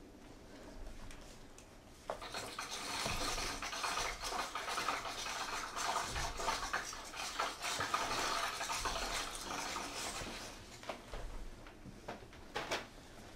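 Dense scraping and rustling noise, like objects rubbed and scraped against a surface, starting abruptly about two seconds in and thinning out near the end, with a few sharp clicks.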